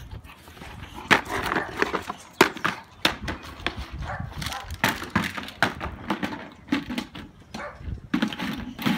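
Boxer puppy knocking and dragging a plastic plant pot around on brick paving: repeated sharp knocks and scrapes of the pot against the bricks, spread unevenly through the whole stretch.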